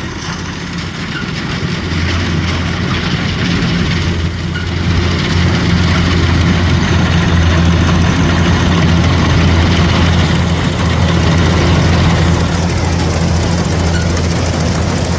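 Kubota rice combine harvester's diesel engine running steadily with machinery clatter, growing louder over the first five seconds and then holding.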